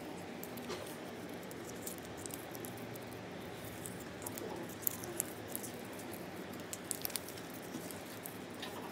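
Quiet classroom background: a steady low murmur of room noise with scattered faint clicks and taps.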